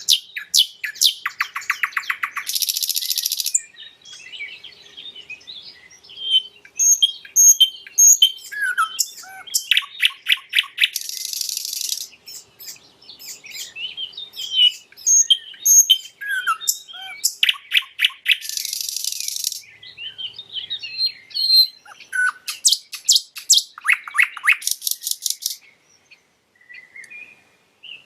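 Nightingale singing, its phrases a varied mix of fast repeated notes, buzzy rattling trills and clear high whistles, separated by short pauses.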